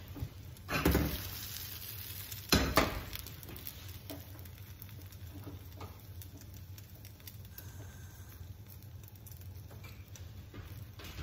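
Potato omelette sizzling in a nonstick frying pan on a gas burner. Two clunks of the pan being moved on the stove grate come about one second and two and a half seconds in.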